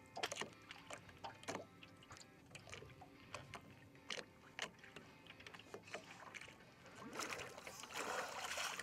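Lake water lapping and splashing around people wading, with many small scattered splashes, then louder sloshing near the end.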